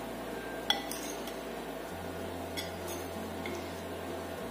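A spoon clinking and scraping against a dish while scooping rice: a few light clinks, the sharpest about two-thirds of a second in.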